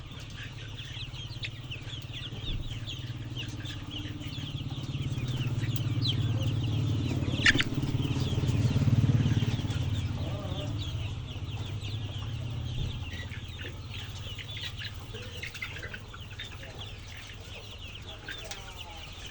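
A flock of chickens clucking and calling steadily, many short calls overlapping. A low hum swells up through the middle and fades again, with a single sharp click near its loudest point.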